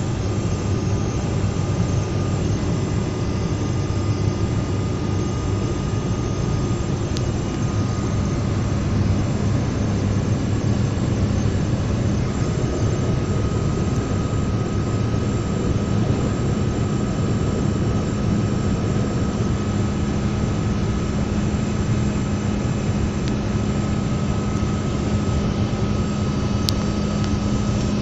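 Renault Clio 3 1.5 dCi diesel running, with an abnormal metallic noise from the manual gearbox. It is heard as a steady thin whine over the engine's continuous hum, and that whine drops out briefly partway through.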